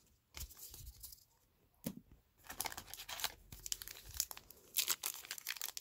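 Trading card pack wrapper being torn open and crinkled by hand, a crackly tearing that starts about two and a half seconds in, after a single soft tap.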